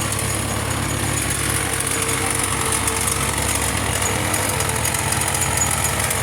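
Farmall tractor engine running steadily, with the rapid hammering of a gasoline-powered jackhammer heard underneath and growing from about the middle.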